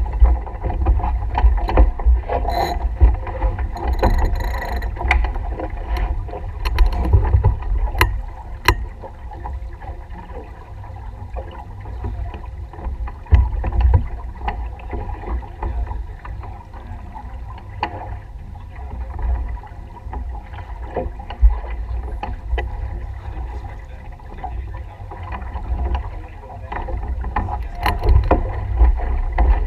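Wind rumbling on the microphone and water noise of a small racing sailboat under way, with a cluster of sharp clicks and knocks in the first nine seconds or so from crew handling lines and gear.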